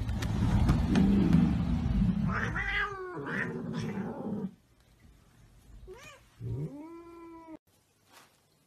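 Cats yowling and meowing. A low rumbling noise for the first two seconds gives way to several drawn-out yowls, and a single meow that rises and falls comes near the end.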